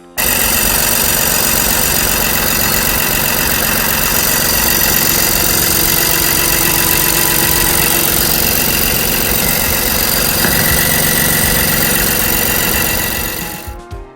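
Honda Odyssey engine running steadily at idle, heard close up, with the chirping and vibration that the uploader traces to a failing fuel pump.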